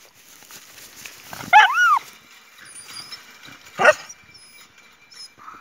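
Dog vocalizing: a short whining yelp that rises and falls in pitch, then about two seconds later a single sharp bark.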